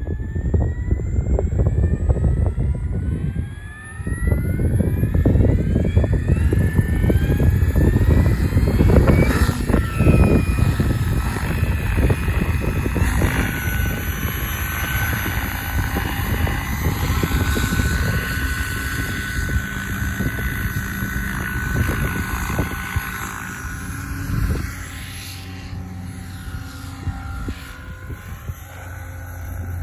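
Electric SAB Kraken 700 RC helicopter (Egodrift 4530HT motor) spooling up with a rising whine over the first few seconds, then flying with a steady whine from motor and rotors over a heavy low rumble. The sound grows fainter after about 25 seconds as the helicopter climbs away.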